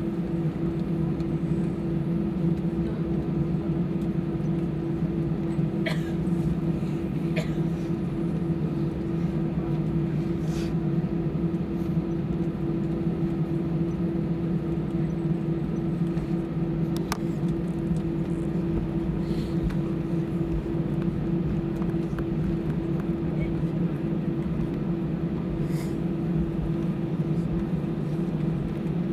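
Airbus A320 cabin noise while taxiing: a steady hum from the engines at idle and the cabin air, with two constant tones and a low rumble, and a few faint clicks.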